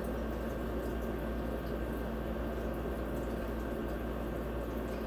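Steady background hiss with a low electrical hum and a faint constant tone, and no distinct event.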